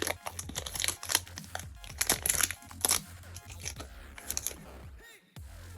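Foil wrapper of a Pokémon TCG booster pack crinkling and tearing as it is opened, a quick run of sharp crackles that dies down about four and a half seconds in. Background music runs underneath.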